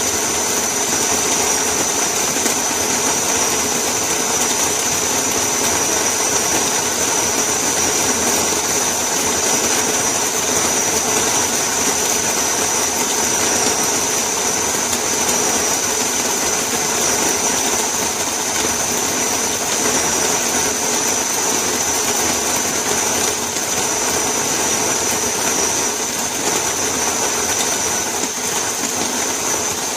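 Electric conical burr coffee grinder running steadily, a continuous motor noise with a constant high whine.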